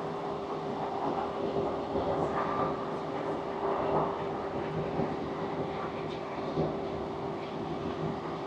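Class 150 diesel multiple unit heard from inside the carriage while running: a steady engine and transmission hum over a constant rumble of wheels on the rails.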